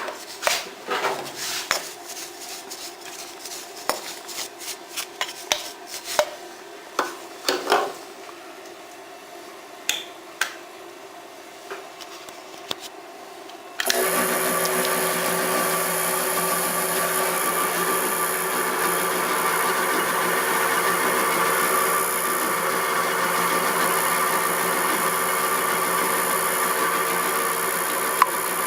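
Scattered clicks and knocks of metal tools or parts being handled, then about halfway through a workshop machine's electric motor switches on abruptly and runs steadily with a constant whine.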